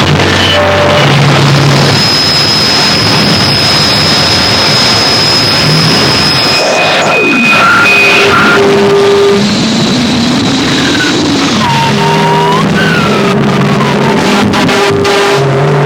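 Harsh electronic noise music: a dense, loud wall of noise with steady held electronic tones and several falling pitch sweeps layered over it, and a quick run of clicks near the end.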